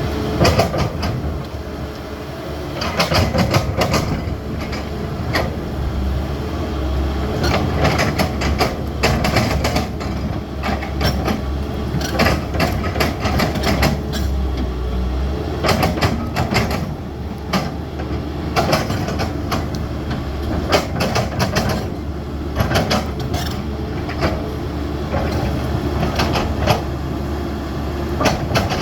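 CAT 320D hydraulic excavator's diesel engine running steadily under load, with frequent metallic clanks and knocks from the machine working.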